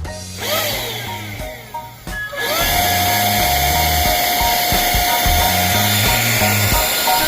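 A small high-speed brushless DC motor sweeps up and down in pitch, then spins up about two and a half seconds in and runs steadily with a high whine and a strong airy hiss, over background music with a steady bass beat.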